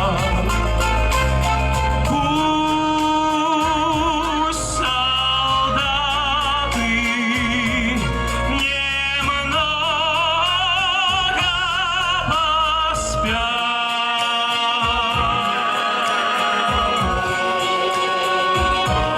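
Live singing with band accompaniment: a male voice holds long notes with a strong vibrato. The bass of the accompaniment drops away about two-thirds of the way through.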